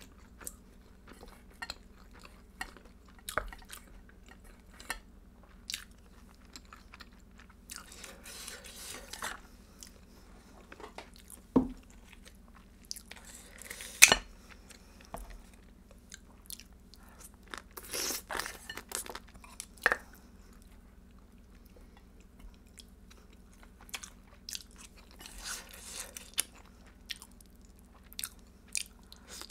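Eating sounds of spicy marinated raw blue crab and rice: wet chewing and crunching, with scattered small clicks. About halfway through, kitchen scissors cut through a piece of crab shell with one sharp snip, the loudest sound here.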